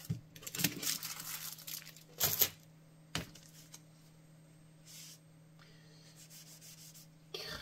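Paper rustling and sliding as sheets are handled and pushed aside for about two and a half seconds, with a sharp tap about three seconds in. Then a low steady hum, and near the end faint rubbing as a paper towel wipes ink off a synthetic tattoo practice skin.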